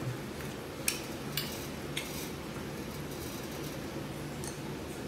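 A few faint clicks and clinks of a small bowl and chopsticks being handled on a steel table, over a low steady background.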